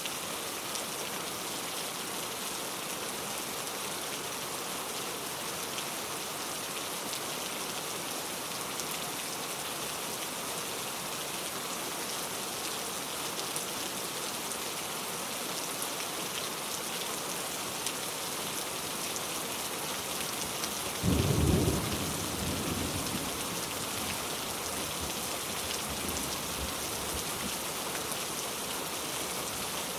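Heavy rain falling steadily. About two-thirds of the way through comes a sudden loud crack of thunder, which rumbles away low over the next few seconds.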